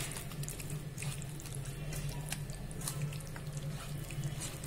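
A hand squishing and kneading chicken pieces through a wet green chilli and curd marinade in a steel bowl, with soft wet squelches and small ticks, over a steady low hum.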